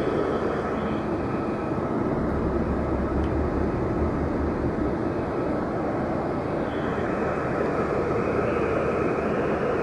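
Steady engine and road rumble of a large vehicle, heard from inside as it drives through city traffic, with a deeper rumble swelling for a few seconds near the start.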